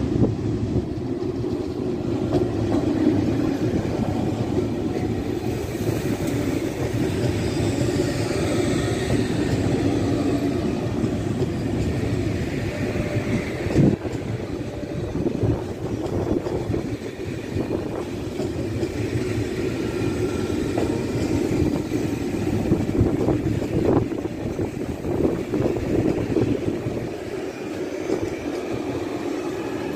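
Italo high-speed electric trainset running past at close range: a steady rail rumble with the clatter of its wheels, and a sharp clack about 14 seconds in.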